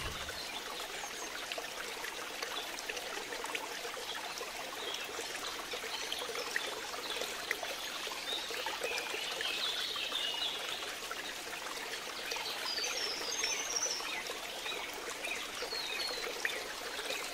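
Steady trickling water, with a few faint high chirps in the middle of the stretch.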